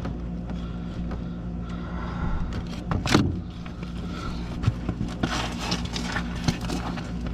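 Hands working a furnace's rubber condensate drain hose, with scrapes and clicks as it is cut and fitted, and a sharp loud snap about three seconds in. A steady low hum sits underneath.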